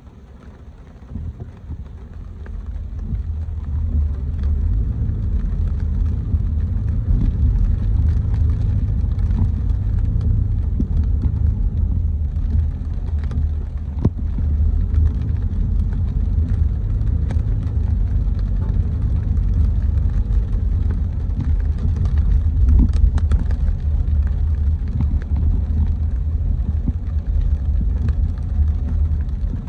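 Car driving on wet city streets: a steady low rumble of engine and tyres that swells over the first few seconds and then holds, with a few faint ticks.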